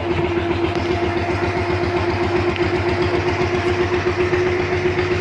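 Fishing boat's engine running steadily with an even low throb and a steady hum.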